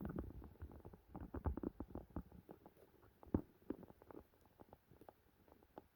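A puppy at its bowl with an ice cube in the water: faint, irregular small clicks, taps and wet laps, busiest in the first half and thinning out, with one louder tap about three and a half seconds in.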